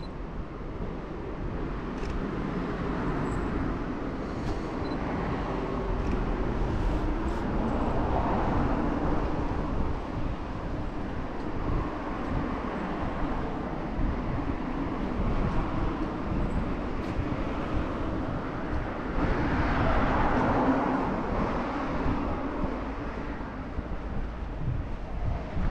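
Outdoor ambience of passing road traffic: a steady vehicle hum that swells about a third of the way in and again about three-quarters through.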